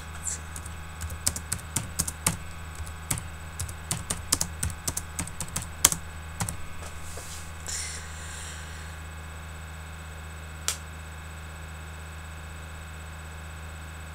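Typing on a computer keyboard: a run of irregular key clicks for about seven seconds, then one lone click a little past halfway, over a steady low electrical hum.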